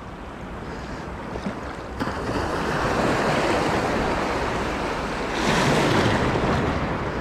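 Small sea waves washing and swirling around the legs in shallow surf, with wind on the microphone; the wash surges louder about five and a half seconds in and then eases.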